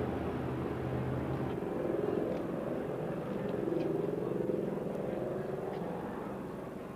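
Outdoor crowd and street noise, with a steady low engine hum that drops away about a second and a half in.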